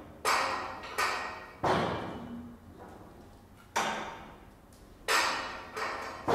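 Percussion instruments struck with mallets: about seven sharp strokes at uneven intervals, each ringing and dying away before the next.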